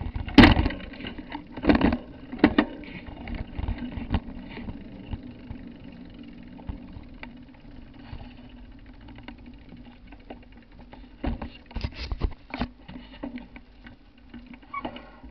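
Handling noise from a small handheld camera being carried and moved about: rubbing and a series of knocks and thumps, the loudest about half a second in, more around two seconds and again near twelve seconds, over a steady low hum.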